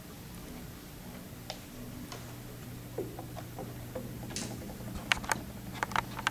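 A steady low hum with scattered short clicks and ticks. The clicks come more often near the end.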